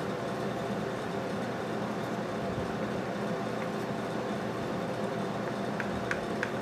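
Steady hum of a room air conditioner and fan running, with a few faint light clicks near the end.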